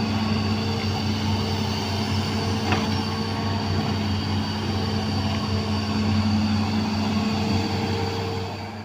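Hydraulic excavator's diesel engine running steadily at work, with one brief knock about three seconds in. The sound fades out near the end.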